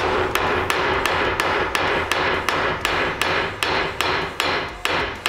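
Hammer tapping on metal in a steady, even rhythm of about three strikes a second.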